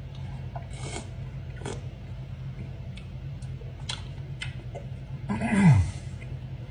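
A person eating melon: faint mouth clicks and smacks, then a short low voiced 'mm' that slides down in pitch about five and a half seconds in, over a steady low hum.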